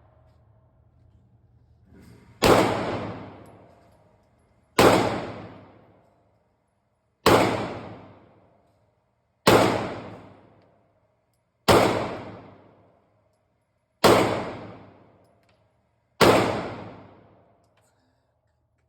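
Seven gunshots fired at a steady pace, about one every two and a half seconds. Each has a sharp crack and a long ringing tail.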